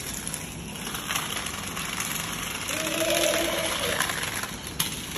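Small battery-powered toy car whirring as it runs along a plastic track, with a couple of sharp clicks as it travels. A brief low hum rises above it about three seconds in.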